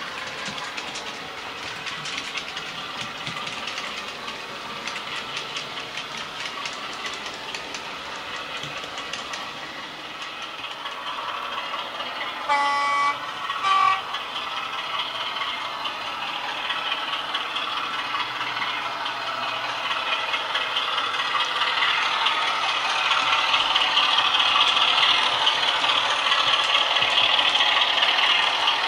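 Model train wheels rattling and clicking over the track, with a Heljan class 33/1's LokSound v4 sound decoder playing its diesel engine through a small 23 mm speaker. About halfway through, the decoder sounds two short horn blasts about a second apart. The sound grows louder over the second half.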